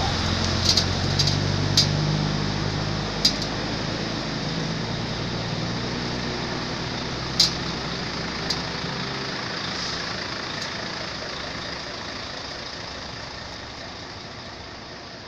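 A motor vehicle engine running, its low hum fading away over the first nine seconds or so. A few sharp clicks sound over it in the first half.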